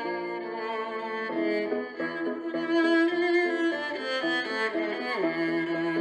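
Background music on bowed strings, a slow melody of held notes that change every second or so.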